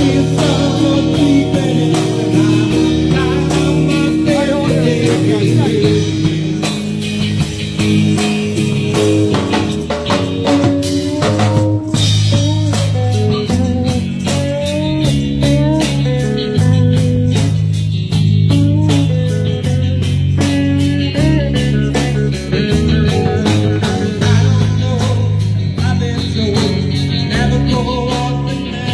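Live band playing blues-rock: electric guitar, bass and drum kit with a steady beat.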